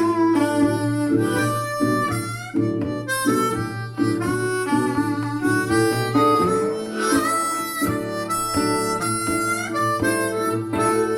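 Blues-style music with a harmonica melody over plucked guitar, played back as an audio test through a Kenwood DP-1050 CD player, Marantz PM5005 amplifier and Grundig Super HiFi Box 2500 speakers.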